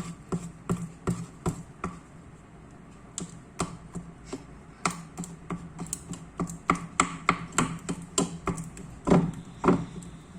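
Slime being stirred in a bowl: quick, irregular clicks and taps, a few a second, with two heavier knocks near the end.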